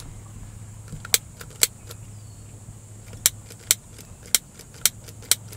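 A cigarette lighter flicked again and again, about eight sharp, irregularly spaced clicks, without catching a flame. A steady low hum runs underneath.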